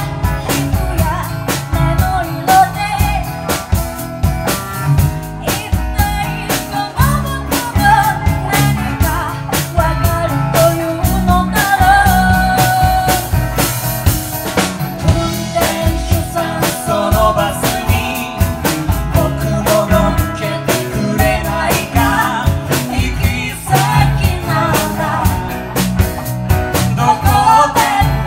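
Live band playing a song: a woman sings lead over a drum kit, electric bass and acoustic and electric guitars, with a steady drum beat throughout.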